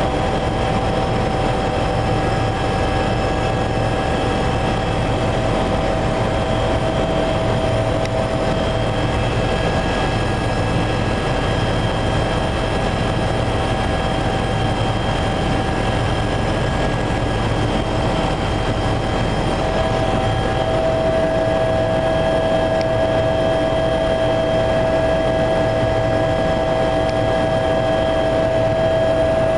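Passenger helicopter in cruising flight heard from inside the cabin: a steady, loud drone of rotor and turbine engines with several constant whining tones over it.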